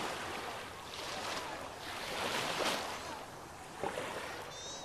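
Small surf washing in over shallow water, a steady hiss of waves that swells and eases every second or two.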